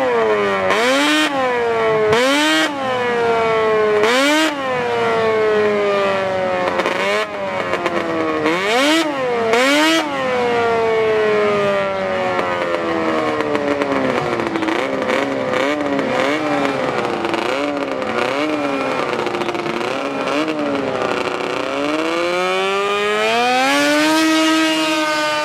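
Racing snowmobile engine revved in a series of sharp blips, each jumping up in pitch and falling back. Near the end it winds up and holds at a high steady pitch.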